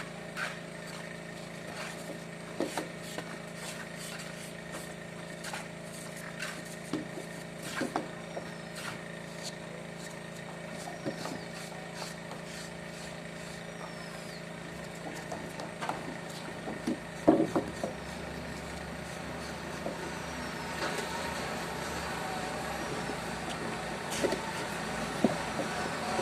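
A vehicle engine running with a steady hum, with scattered clicks and knocks, the loudest about two-thirds of the way in. A rushing noise grows louder over the last few seconds.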